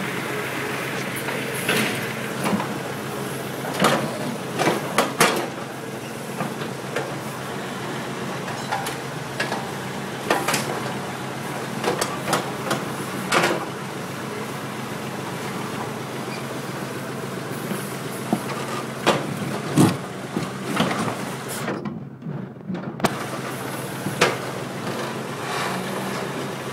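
JCB 3CX backhoe loader's diesel engine running steadily while its steel bucket digs out broken concrete, with sharp clanks and scrapes of the bucket striking and dragging through concrete rubble every few seconds.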